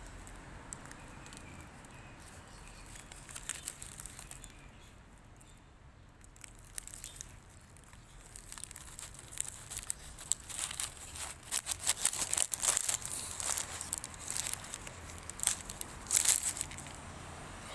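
Paper pie bag crinkling and rustling as it is handled, many sharp crackles, sparse at first and louder and more frequent in the second half.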